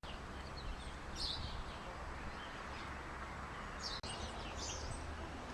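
Outdoor ambience: small birds chirping in short bursts over a faint, steady low background noise.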